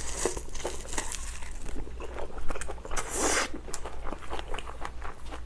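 Close-up chewing of a mouthful of rice and kimchi stew wrapped in roasted seaweed (gim), with many small wet mouth clicks and smacks. About three seconds in, a short paper-tissue rustle as the mouth is wiped.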